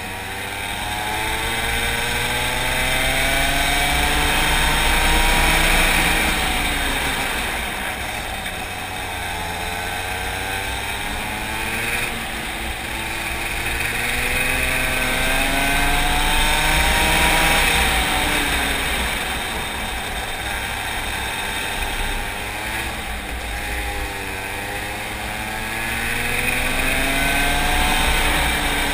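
Racing kart engine heard from onboard, its pitch climbing as it accelerates along the straights and dropping as the driver lifts for the corners, three times over.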